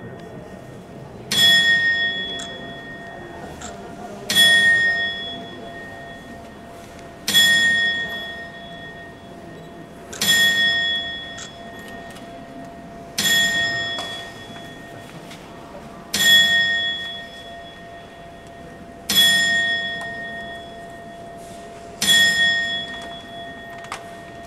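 Astronomical clock's hour bell struck by the Death automaton: eight strikes about three seconds apart, each ringing out and fading before the next.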